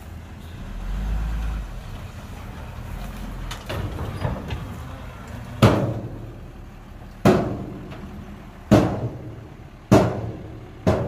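Hyundai dump truck's diesel engine running while it tips its load of soil, swelling briefly about a second in. From about halfway through, five loud bangs each with a short ring, roughly a second and a half apart: the tailgate of the tipped bed slamming as the soil pours out.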